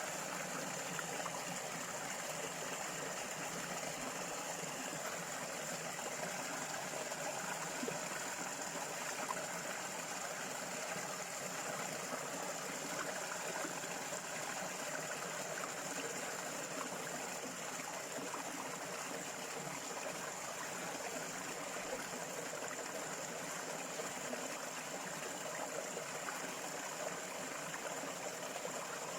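Stream of water flowing and trickling steadily, with a continuous thin high-pitched tone above it.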